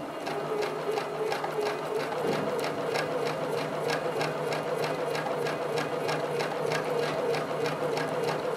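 Domestic sewing machine running steadily in free-motion quilting: a motor hum under a quick, even ticking of the needle and free-motion foot stitching through the quilt.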